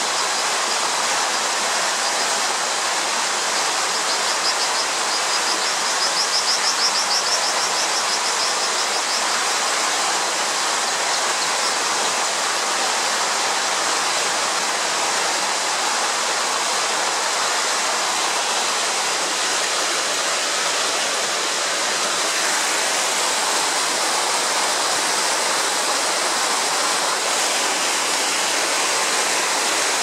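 Fast-flowing river water rushing steadily. About four seconds in, a high, rapid trill sounds over it for a few seconds.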